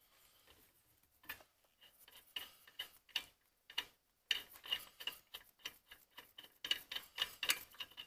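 Loosened steel lug nuts being spun off the wheel studs by hand, making a run of irregular light metallic clicks and ticks. The clicks are sparse at first and come thicker in the second half.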